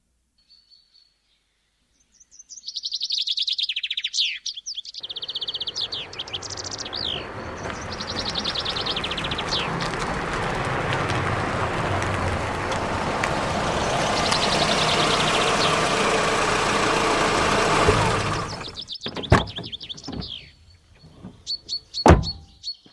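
Birds chirping, then a car engine running for about thirteen seconds, growing louder and cutting off sharply, followed by a few sharp knocks with more birdsong.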